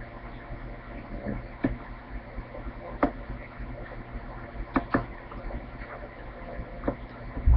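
A handful of light clicks and taps from handling at a desk, over a steady electrical hum, with a low thump near the end.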